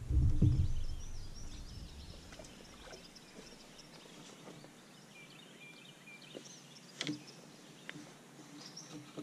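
Low thumps and knocks in the first second, the sound of someone moving about on a boat deck, then faint songbirds chirping, with a sharp click about seven seconds in.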